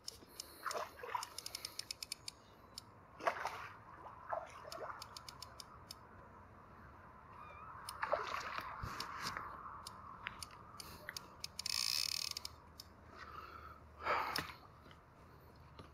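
A hooked common carp splashing at the surface as it is played in, with a short run of fast ticks about a second in and the loudest splash near the end as it is drawn over the landing net.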